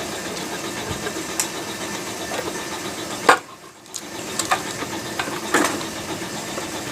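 A few sharp metallic knocks and clinks from tools and parts during engine disassembly, the loudest about three seconds in, over a steady background hum.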